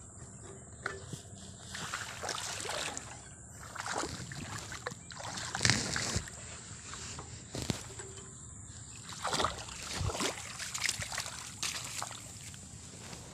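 Footsteps sloshing through the wet mud and water of a flooded rice paddy, an uneven splash every second or two. Under them runs the faint steady sound of a hand tractor's engine.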